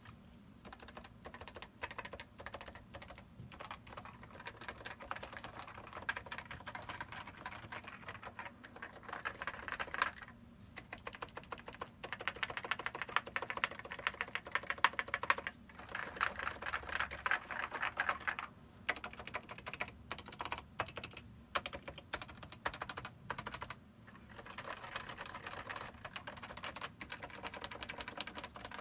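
Topre Type Heaven keyboard being typed on quickly, with its 45 g Topre electrocapacitive switches under Hi-Pro PBT dye-sub keycaps. A dense, continuous run of keystrokes, broken by a few brief pauses.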